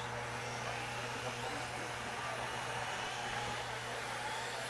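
Radio-controlled dirt-oval race cars running laps, a steady whirring noise of their motors and tyres with a constant low hum under it.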